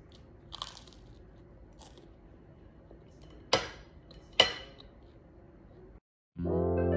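Crunchy toast being bitten and chewed: two sharp crunches about a second apart around the middle, over faint room tone. Near the end, after a brief silence, music with bell-like tones begins.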